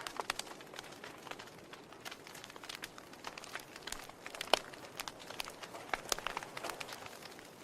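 Wood fire crackling in a fireplace: irregular sharp pops and snaps over a steady hiss, with one louder pop about halfway through.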